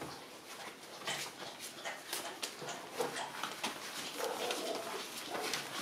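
Eighteen-day-old puppies whimpering and squeaking in short bursts, a few whines more than halfway in, over scratching and rustling of their paws on newspaper.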